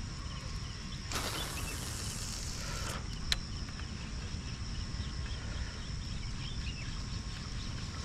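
Fishing line hissing off the reel for about two seconds during a cast, followed by a single sharp click, over steady insect chirring.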